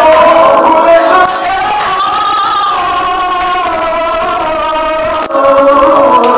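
A group of worshippers singing a hymn together, several voices at once. The singing drops in level a little over a second in and comes back louder near the end.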